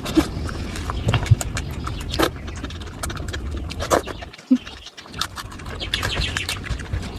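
Close-miked eating: a person chewing, with many short wet mouth clicks and smacks.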